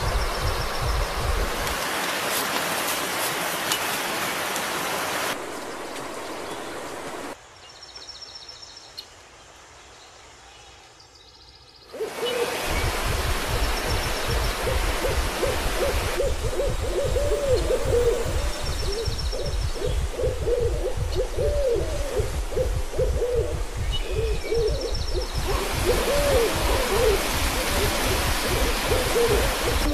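Rushing river water, which drops away for a few seconds and then comes back with a breathy, wavering hooting melody over it, its pitch sliding and looping up and down.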